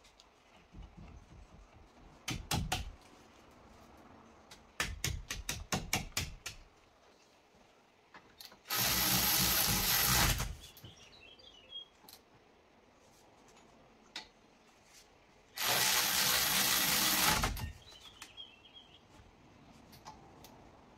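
Rapid clicking in two short runs, then a power tool runs twice for about two seconds each, loud and steady: the caliper bolts being driven in on a front brake caliper.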